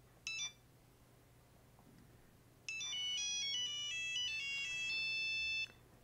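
A Nokia 8210 monophonic ringtone file playing from a Google Pixel 8 Pro's speaker as a preview of the selected ringtone. One short beep about a quarter second in, then near the middle about three seconds of a fast melody of single high beeping notes stepping up and down in pitch, stopping just before the end.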